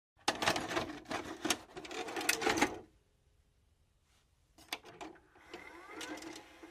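Videocassette recorder mechanism loading a tape: a loud mechanical clattering for about two and a half seconds, then after a short pause a few sharp clicks and a fainter whirring hiss as playback starts.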